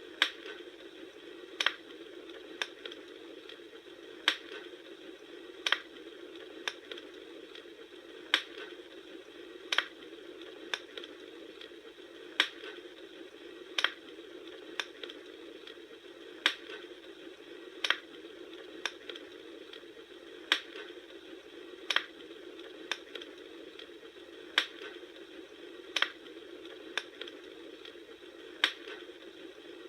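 Bonfire crackling: a steady hiss with sharp pops, the loudest coming in pairs about every four seconds in an evenly repeating pattern, with smaller pops between.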